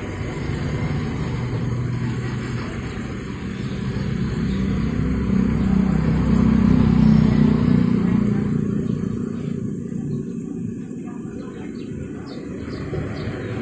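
A motor vehicle's engine rumbling as it passes on the street, growing louder to a peak around the middle and then fading.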